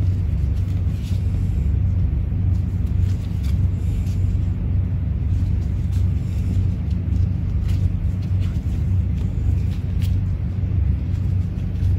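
Steady low rumble throughout, with a few faint, brief crinkles as fiberglass casting tape is unrolled and wrapped around a padded arm.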